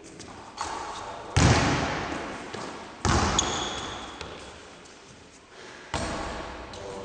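Basketball impacts echoing in a large gym: four sharp bangs, about half a second, a second and a half, three seconds and six seconds in, each fading away slowly. The bang at about a second and a half is the loudest, and a brief high squeak comes just after the third.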